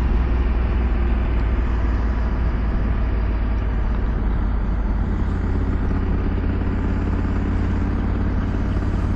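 2022 Honda Africa Twin DCT's parallel-twin engine running steadily at low road speed on sealed road, a continuous low rumble mixed with road and wind noise.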